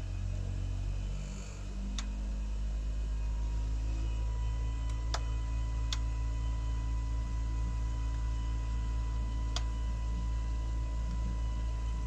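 Outdoor unit of a Gree Versati III 8 kW air-to-water heat pump running in defrost, a steady low hum. A thin high steady tone sets in about one and a half seconds in, and a few sharp ticks come from the unit now and then.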